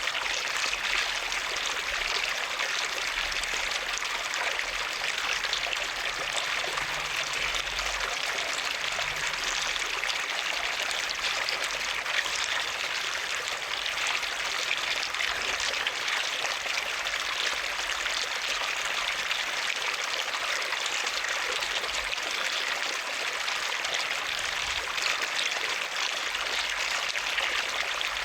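Water running steadily, an even rushing and splashing with no pauses or changes.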